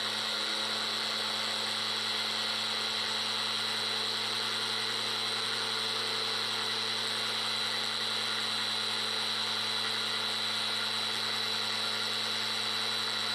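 Small electric grain grinder running steadily while grinding grain, its motor giving an even, high whine.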